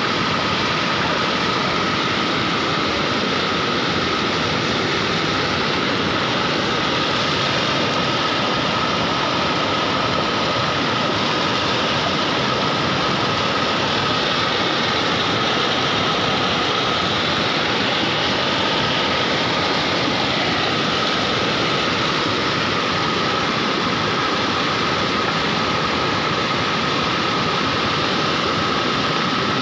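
Swollen stream in flood: muddy water rushing steadily over and alongside a road, with a constant, unbroken rush.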